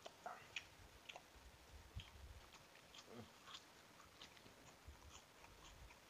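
Faint chewing and biting of instant noodles and a sheet of roasted seaweed, with scattered small clicks and a few soft low thumps.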